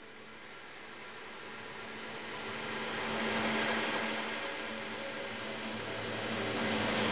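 Steady rushing vehicle noise with a low hum beneath it, swelling over the first three seconds and then holding steady.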